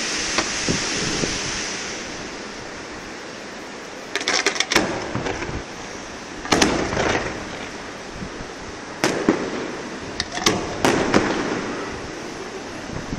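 Aerial fireworks display. A crackling hiss from glittering stars fades away over the first couple of seconds, then shells burst with sharp bangs, singly and in small clusters, every second or two.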